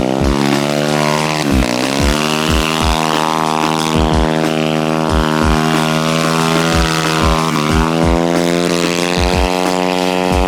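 Mini kart's drive motor running steadily under load. Its pitch dips and climbs back about a second and a half in and again around eight seconds, over repeated short low thumps.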